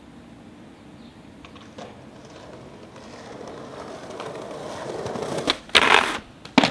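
Skateboard wheels rolling on concrete, growing louder as the skater approaches, then the board grinding along a concrete ledge in a loud scrape about half a second long, and a sharp clack near the end.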